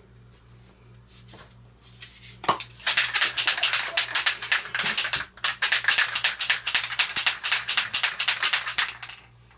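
An aerosol can of spray adhesive being shaken hard, with a rapid, even rattle that lasts about six seconds and starts a few seconds in.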